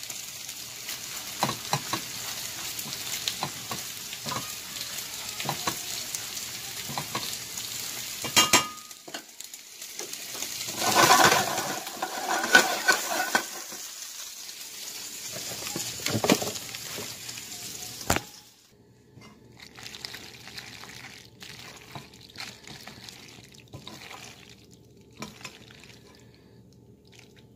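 Ribeye steak pieces sizzling in a frying pan, with a silicone spatula stirring shell pasta and cheese sauce in a metal saucepan, making small clicks and scrapes. The sizzle swells loudest about halfway, then cuts off suddenly about two-thirds of the way in, leaving only quieter stirring of the thick mac and cheese.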